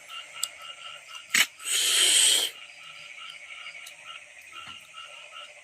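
A frog chorus pulses steadily in the background. About two seconds in, a short, loud, harsh noisy burst lasts just under a second.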